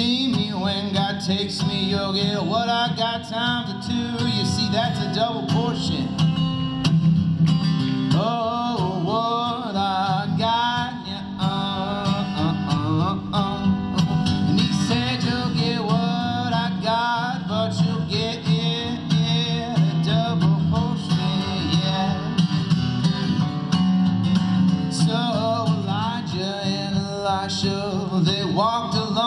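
Country-style music: a song with singing over acoustic guitar.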